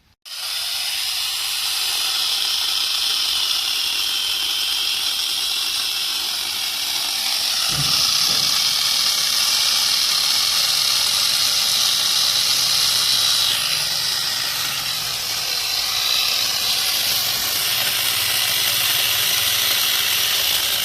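Electric angle grinder fitted with an 11.5-inch chainsaw adapter, switched on at once and running continuously with a harsh hiss and a high whine. The whine sags and recovers a few times, with a dull knock about eight seconds in.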